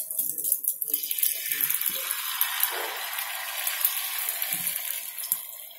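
Beaten egg mixture poured onto a hot ghee-greased flat tawa, sizzling steadily from about a second in and easing off near the end.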